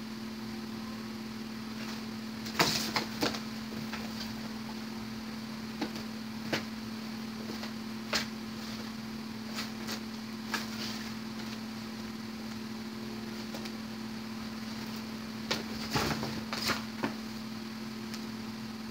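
A cat pawing and scratching at a small cardboard box, giving scattered crinkles and scrapes that come in two busier spells, about two and a half seconds in and near the end, over a steady household hum.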